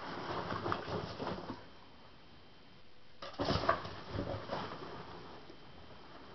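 Foam packing peanuts rustling and shifting in a cardboard box as ferrets burrow through them. It comes in bursts: a spell of rustling, a quieter pause of about a second and a half, then another strong burst that tapers off.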